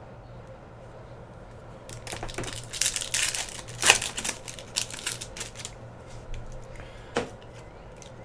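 Foil wrapper of a 2016-17 Upper Deck Artifacts hockey card pack being torn open and crinkled by hand, a run of crinkling and tearing from about two seconds in to about six, loudest near four seconds. A single click follows near seven seconds, over a steady low hum.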